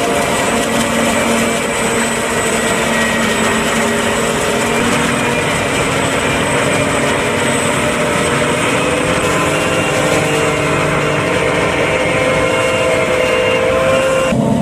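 John Deere 8400i self-propelled forage harvester at work chopping corn: a steady mechanical drone of engine and chopping gear, with several held tones that drift slightly in pitch.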